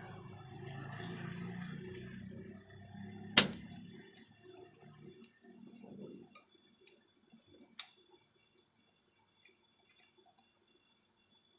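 Sharp clicks and clinks of small hard objects being handled: a loud one about three seconds in and another near eight seconds, with a faint low hum fading out over the first few seconds.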